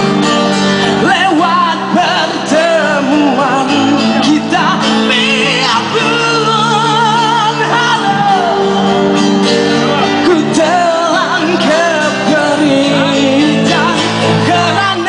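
Live band playing a song, with a singer's wavering voice over sustained instrumental chords.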